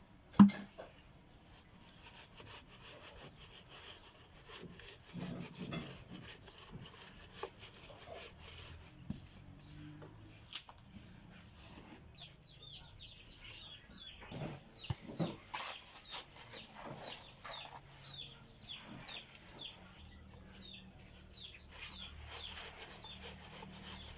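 Hand sifting of sand for a cement mix: scattered scrapes and knocks, with one sharp knock near the start. From about halfway, a bird gives a long run of short, quick falling chirps.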